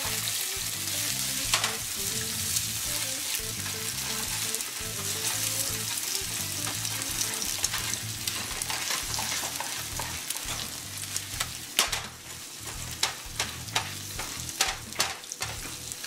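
Eggs sizzling in hot bacon grease in a nonstick skillet as they are stirred and broken up with a spatula. From about twelve seconds in, sharp taps and scrapes of the spatula on the pan stand out over the sizzle.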